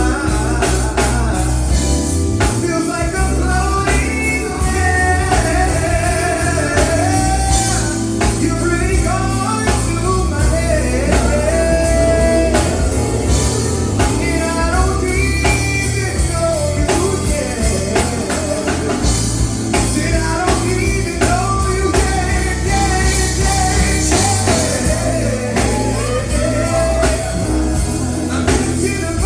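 Live rock band playing with a singer, drum kit and guitar, the drums driving a steady beat under a sung melody.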